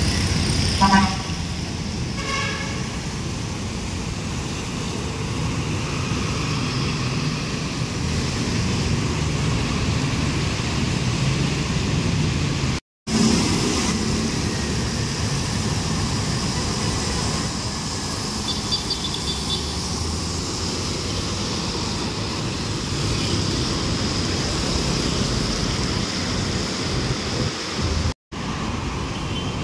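Street traffic with buses and other vehicles passing, engines running and tyres on the road. A vehicle horn toots twice in the first few seconds.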